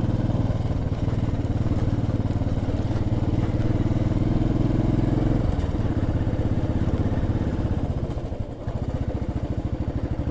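Royal Enfield motorcycle engine running steadily as the bike is ridden. The engine note eases off a little about halfway through and dips briefly near the end, as when the throttle is rolled off.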